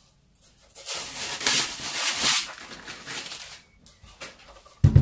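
Clear plastic wrapping being pulled off a speaker and crumpled, a loud crinkling rustle lasting about three seconds. A heavy low thump near the end.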